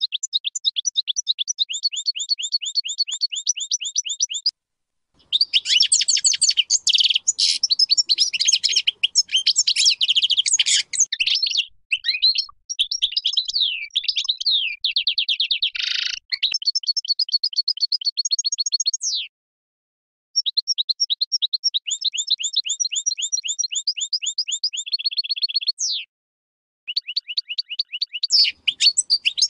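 Major-race European goldfinch singing: phrases of rapid, evenly repeated sweeping notes alternate with denser, jumbled twittering, with a short buzzy note midway and a few brief pauses.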